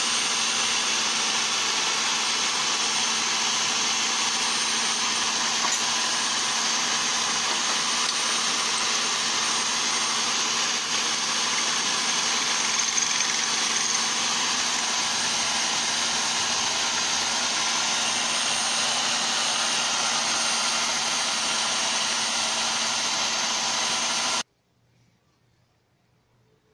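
Electric drill clamped in a jig running steadily at speed, spinning a golf club ferrule on a mandrel while a blade is held against it to shape the ferrule and true it round. The sound cuts off suddenly near the end.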